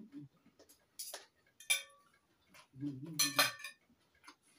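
Knife and fork clinking and scraping against a china dinner plate: a few separate clinks, one with a short ring.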